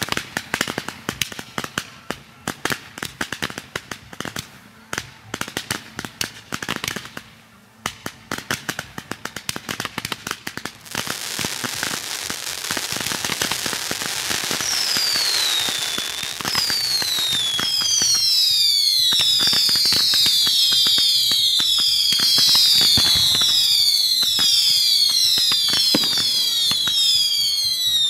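Fireworks going off. For the first ten seconds or so there is dense, rapid crackling with a brief lull. Then a steady hiss builds, and from about halfway many overlapping whistles come in quick succession, each falling in pitch.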